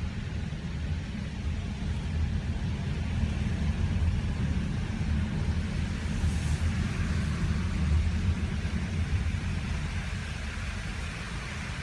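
Car driving along a road: a steady low rumble of engine and tyres with a light hiss of road and wind noise.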